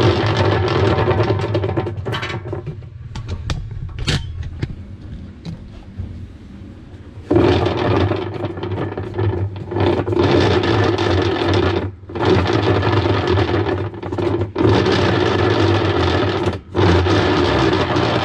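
Whirlpool top-load washer running with a loud whirring hum. It eases off for a few seconds, comes back strongly about seven seconds in, and breaks off briefly three times. This is the abnormal noise that comes with the washer not washing properly.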